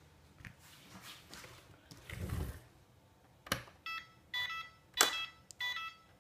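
Handling rustle, then a couple of sharp clicks and a series of short, high electronic beeps from the drone's radio-control electronics, starting about three and a half seconds in.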